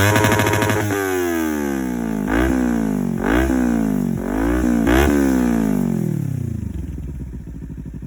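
Kawasaki Ninja 300 parallel-twin engine through an aftermarket Akrapovič sport exhaust, revved in a series of quick throttle blips, each pitch jumping up and then falling away. It drops back to a low, even idle near the end.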